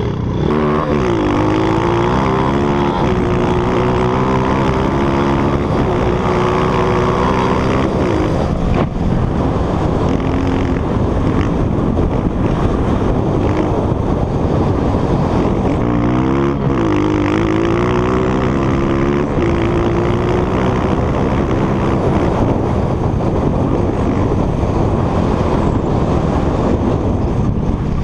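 Dirt bike engine under way, revving up twice with its pitch climbing quickly and then holding, about half a second in and again about halfway through, easing off in between. Steady wind noise runs under it.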